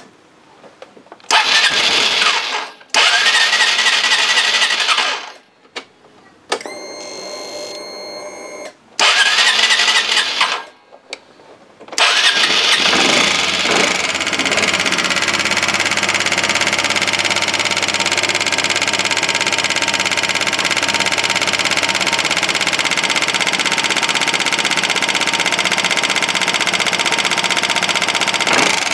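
Honda SH 125i scooter's 125 cc fuel-injected four-stroke single cranked in several separate attempts before it catches about twelve seconds in, then running steadily with an unhealthy knock. The knock comes from a battered valve-adjusting screw and a broken valve tip in the top end, leaving excess valve clearance.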